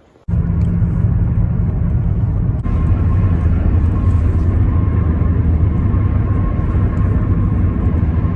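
Car running on the road, a loud, steady low rumble of engine and road noise. It starts abruptly a fraction of a second in, with a short cut a couple of seconds later, after which a faint steady whine sits above the rumble.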